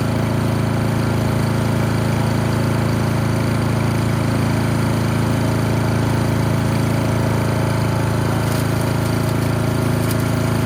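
The gas engine of a GreatCircleUSA chipper-shredder-mulcher running steadily at speed, a constant loud drone.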